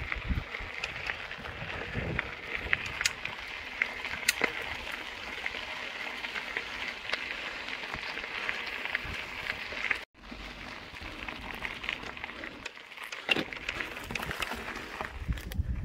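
Mountain bike tyres rolling over a loose dirt and gravel trail: a steady crunching hiss dotted with the clicks of small stones, with low gusts of wind on the microphone now and then. The sound cuts out for a moment about ten seconds in.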